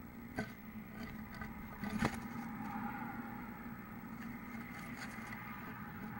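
Steady hum and hiss from a nest-box camera's microphone, with a sharp knock about half a second in, a louder knock about two seconds in, and light scratching: a violet-green swallow's feet on the nest box as it comes in to the nest.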